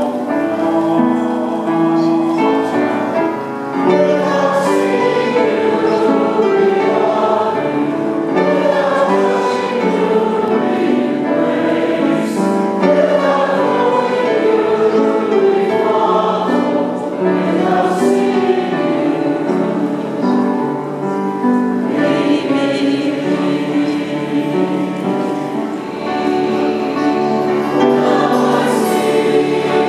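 Church choir singing with instrumental accompaniment.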